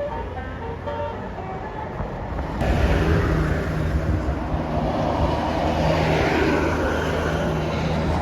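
A tune of short, steady tones, then about two and a half seconds in an abrupt change to a loud, close bus engine running with a steady low hum under dense noise.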